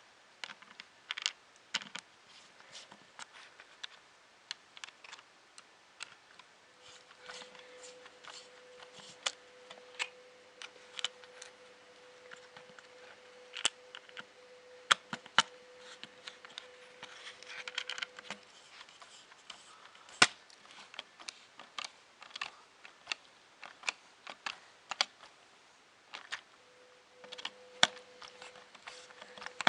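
Irregular clicks and taps of the Spectrum+'s small plastic parts and clips being handled and fitted back into place by hand. A faint steady hum runs under it for part of the time.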